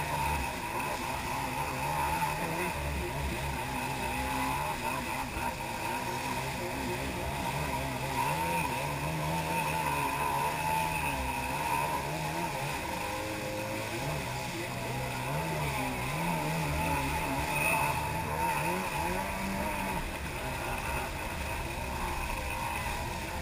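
Jet ski engine running at speed, its pitch wavering up and down with the throttle over a steady high whine, mixed with the rush of spray and wake water.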